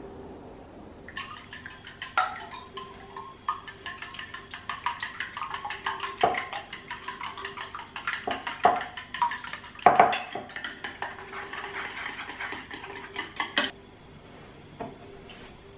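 Chopsticks beating eggs in an enamel bowl: quick, steady clicks against the side of the bowl, about five a second. They start about a second in and stop shortly before the end.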